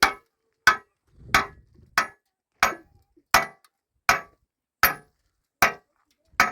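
Hammer blows: about ten sharp strokes at a steady pace, roughly three every two seconds.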